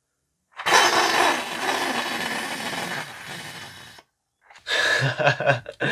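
3D-printed compressed-air piston engine running on air from a bottle at 30 psi. It makes a weird hissing, buzzing noise for about three seconds, then fizzles out. The maker puts this down to an air inlet too narrow, limiting the air flow.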